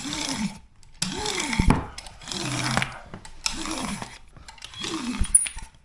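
A hand roller pushed back and forth over foil-backed IsoTherm thermal liner on a wall, pressing out the air behind it. There are about five strokes, each a rough rolling rub with a whirr that rises and falls in pitch.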